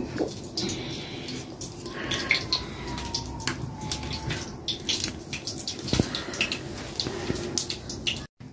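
Crackle of a wood cooking fire under a wok of hot oil, a steady hiss with many small irregular clicks, mixed with the light clicks and scrapes of a knife trimming and peeling sprouted onions.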